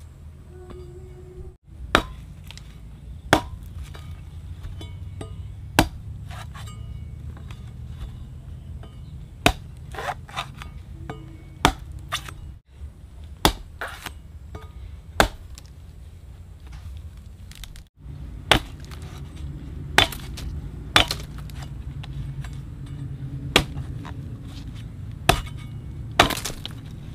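A blade chopping into something hard: repeated sharp strikes, one every one to three seconds, over a steady low rumble.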